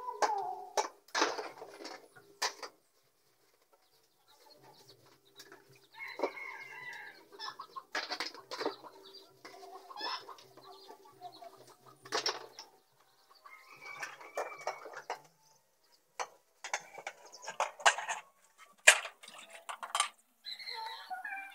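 Chickens clucking on and off, mixed with the sharp knocks and clinks of plates being hand-washed in plastic basins. A few seconds in, all goes nearly quiet for a couple of seconds.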